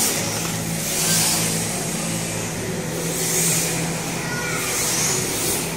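RC drift cars running on a smooth indoor floor: their electric motors whir and tyres hiss in swells that come and go about every one to two seconds as the cars slide past, over a steady low hum.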